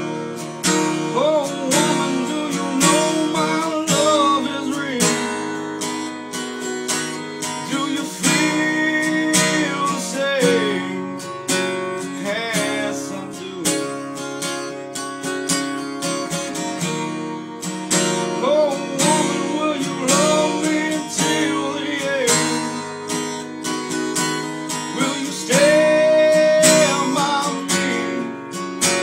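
Acoustic guitar strummed by hand in a steady rhythm, playing chords of a song.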